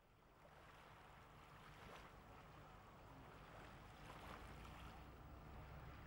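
Near silence: a faint, steady background hiss with a low hum underneath.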